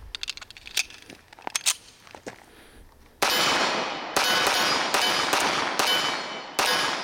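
Small metallic clicks as a 1911 pistol is handled and loaded, then six shots from a Magnum Research Desert Eagle 1911 Commander fired about half a second to a second apart. Each shot is followed by a long ringing tail.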